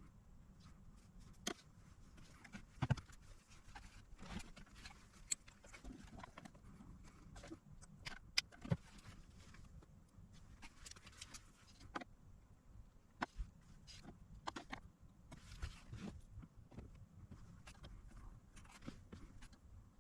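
Faint, irregular clicks and taps of small objects being handled on a workbench, over a low steady hum.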